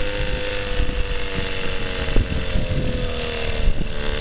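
Johnson outboard motor running steadily at low speed, its engine note sagging slightly and picking back up near the end.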